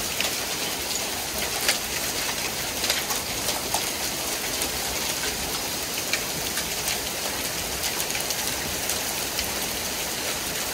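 Rain pouring steadily during a thunderstorm, a constant hiss with scattered sharp ticks of single drops striking.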